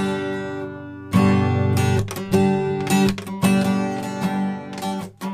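Acoustic guitar strummed in front of a directional microphone: a run of chords, about two strums a second, each ringing on.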